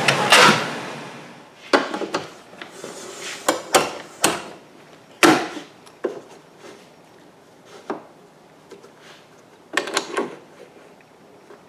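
Festool Kapex miter saw winding down after a cut, fading out within the first second and a half. Then a series of wooden knocks and clacks as the hardwood stock is moved on the plywood fixture and the hold-down clamp is set, the loudest knock about five seconds in.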